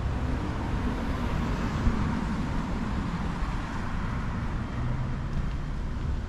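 Street traffic on a busy city avenue: steady road noise with a low engine rumble, swelling as a car passes about two seconds in and then easing.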